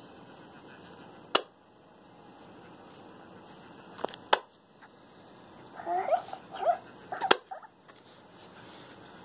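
Hatchimal toy egg pecking at its shell from inside: one sharp tap about a second and a half in, a quick pair about four seconds in, and one more past seven seconds. Between the taps, around six to seven and a half seconds, the toy's electronic creature gives a string of short chirping calls.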